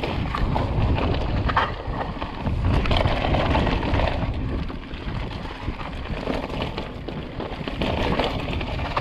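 Mountain bike riding down a rough dirt trail: wind rumbling on the microphone, with tyre noise and frequent short clicks and clatters from the bike over the ground.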